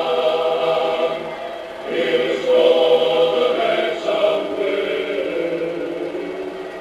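Many voices singing together in long held notes, a choir or a crowd chanting in unison. One phrase breaks off about two seconds in, a new one starts, and the singing fades toward the end.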